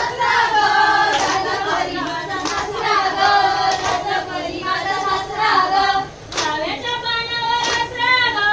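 Women singing a Konkan jakhadi (zhakdya) dance song, the melody carried by a clear high voice, with a sharp beat roughly every second and a quarter.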